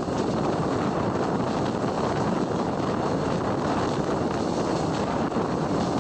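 Steady running noise of a passenger train coach moving at speed, heard at an open window: wheels rolling on the rails and air rushing past.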